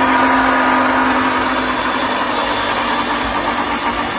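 Electric stick blender running steadily in its beaker, blending a fruit smoothie.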